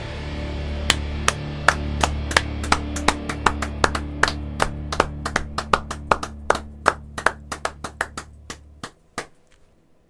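The last chord of a heavy metal song rings out and fades, then cuts off about nine seconds in. Over it, a single person's hand claps start slowly about a second in and speed up steadily.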